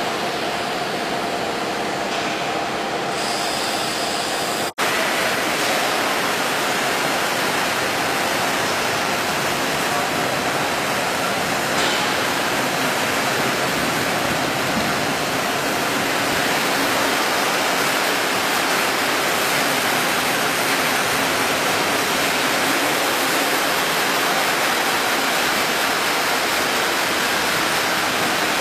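Steady, even hiss of workshop noise. It drops out for an instant about five seconds in.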